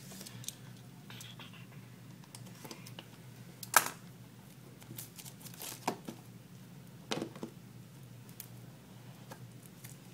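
Plastic shrink-wrap on a phone box being slit with a utility knife and peeled off, crinkling, with scattered clicks and taps from the cardboard box being handled. The sharpest click comes about four seconds in. A steady low hum runs underneath.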